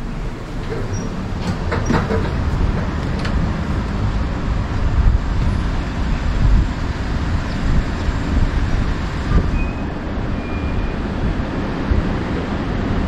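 Steady low rumble of road traffic, swelling and easing as heavy vehicles such as buses pass, with a few light clicks in the first few seconds.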